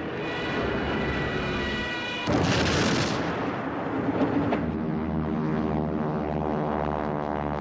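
Aircraft engine drone with a steady high whine, broken about two seconds in by a loud bomb explosion that dies away over a second or so; from about four and a half seconds a fresh engine drone of Ju 87 Stuka dive-bombers takes over.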